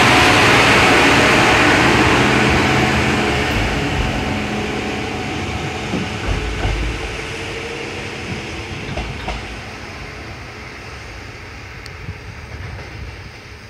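MRT300-series diesel railcar MRT301 pulling out of the station: its engine running under power as it goes by, then fading steadily as it draws away down the line. A few clicks come through along the way.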